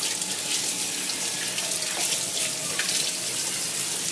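Water running steadily from a tap as the usuba knife is rinsed of cleanser under it.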